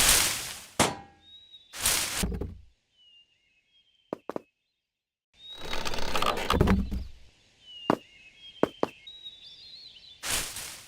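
A string of sound effects: knocks and thuds, several loud rushing noise surges, and sharp clicks, with short high bird-like chirps in between. A near-silent gap of about two seconds falls in the middle.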